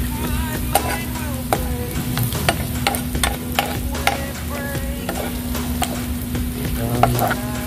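A metal spoon stirring and scraping sliced onion, garlic and ginger in a frying pan, with irregular sharp clinks of metal on the pan over the sizzle of the sautéing.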